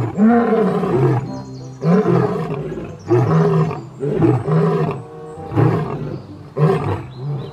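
Male lion roaring: a longer roar at the start, then a run of shorter, deep grunting roars about one a second.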